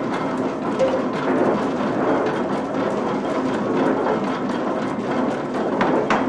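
Old snuff mill machinery running: a steady rumble with a hum and dense, rapid clatter, and one louder knock near the end.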